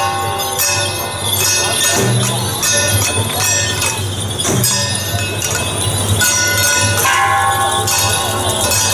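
Temple-procession percussion for a jiajiang troupe's dance: clashing metal percussion and jingling bells in a steady beat, with ringing metallic tones that recur every two to three seconds.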